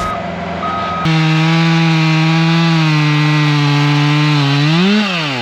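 About a second in, a two-stroke chainsaw sets in, running loud and steady under load as it cuts through wood. Near the end its pitch rises sharply as the engine revs up, as when the chain clears the cut, then falls back as the throttle is released.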